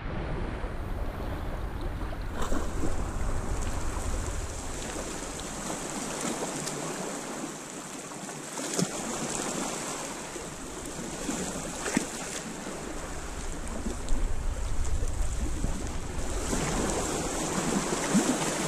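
Small waves lapping against shore rocks, with wind gusting on the microphone that eases for a few seconds in the middle. A few light clicks come through.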